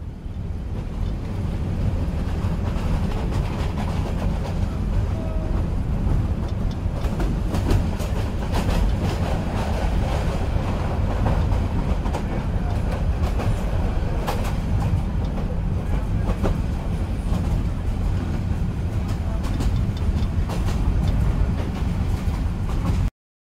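Moving train: a heavy, steady low rumble with scattered clicks of wheels over the rails. It swells up at the start and cuts off abruptly near the end.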